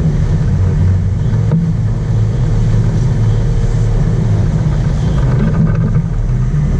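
Sport fishing boat's engines running steadily under way: a loud, even low drone, with water rushing in the churning wake.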